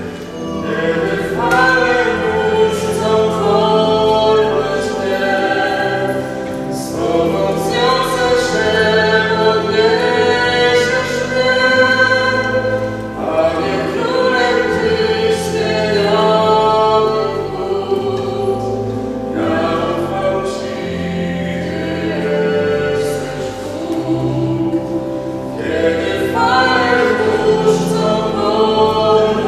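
A woman singing a slow church song, accompanied by sustained organ chords that change every second or two. Her phrases are separated by short pauses.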